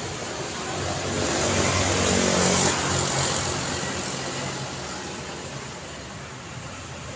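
Road traffic with a car passing by: the tyre and engine noise swells to a peak about two and a half seconds in, then fades away.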